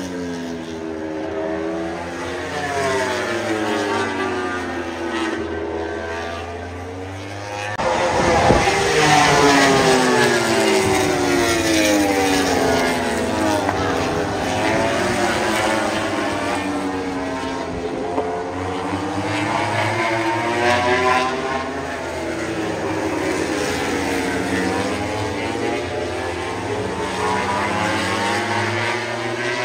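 Aircraft flying low past overhead, a steady engine drone whose tone sweeps slowly up and down as it passes, growing louder about eight seconds in.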